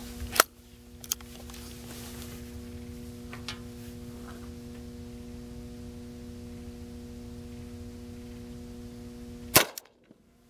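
The break-action single-shot .357 rifle's action snapping shut with a sharp click, then a few small clicks, then one loud shot fired from it near the end, a .38 Special target load.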